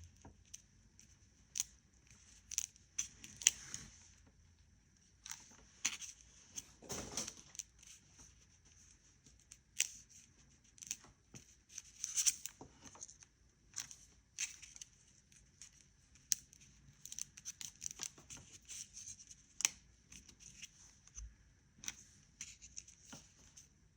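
Cardstock papercraft pieces being lifted, handled and pressed down during hot-gluing: irregular light paper rustles and small clicks, one after another.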